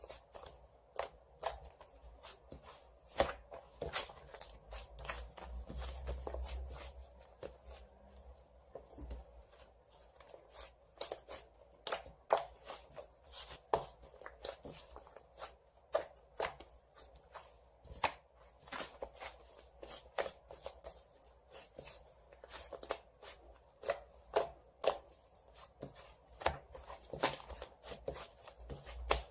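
White fluffy clay slime being squeezed and poked by hand, making irregular sharp clicks and pops, a few a second, over a soft squishing.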